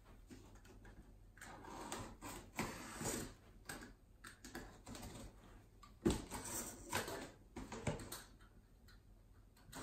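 Cardboard shipping box being handled and opened: rustling and scraping of cardboard in short spells, with a sharp knock about six seconds in.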